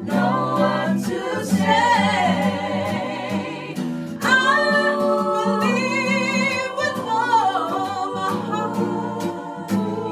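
Small mixed a cappella vocal group singing a gospel song. Low voices hold sustained chords while higher voices sing bending, ornamented melody lines over them, and a strong new phrase comes in about four seconds in. A steady beat of sharp clicks keeps time.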